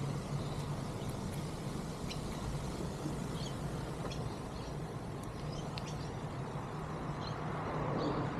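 Steady low background rumble and hum, with faint, scattered high chirps and ticks.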